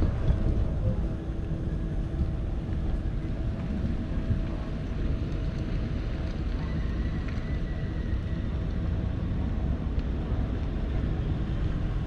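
Bass boat's outboard engine running steadily, with wind rushing over the microphone.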